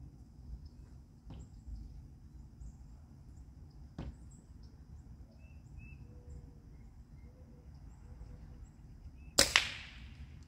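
A pellet gun fires once near the end: a sharp, loud crack with a second crack right behind it. Before it, a low rumble, a couple of small clicks and faint bird calls.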